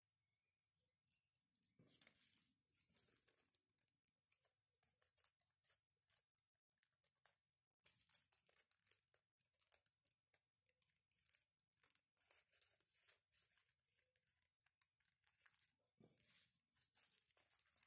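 Faint crinkling and rustling of a thin plastic punched sheet protector and paper-wrapped sugar sticks being handled and slid into the sleeve, with a couple of soft handling bumps.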